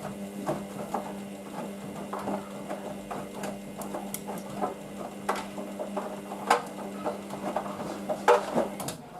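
Hoover VisionDynamic DYN9144D3X washing machine washing on its Synthetics 40 programme: a steady motor hum while the drum turns, with irregular clicks and knocks from the tumbling load. The hum stops about nine seconds in as the drum comes to rest.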